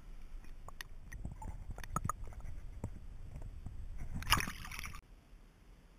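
A just-landed largemouth bass being handled on a boat, with scattered knocks and clicks and wet sloshing. About four and a half seconds in comes a louder wet splash and flapping. The sound drops off suddenly about half a second later.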